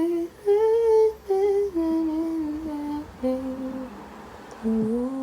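A woman humming a tune without words, in long held notes that step up and down with short breaks between them.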